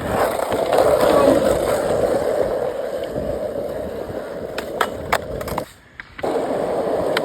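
Skateboard wheels rolling steadily over pavement, with a few sharp clicks about five seconds in. The rolling sound breaks off briefly near six seconds, then resumes.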